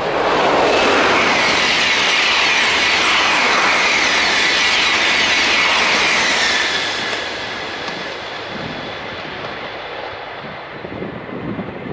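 TGV high-speed train passing close at full line speed: a sudden, loud rush of wheel and air noise for about seven seconds, then fading as the train draws away.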